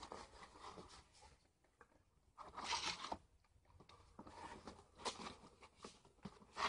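Boglins cardboard toy box being handled and turned over, giving faint rustling and scraping against the hands. It is loudest about two and a half seconds in.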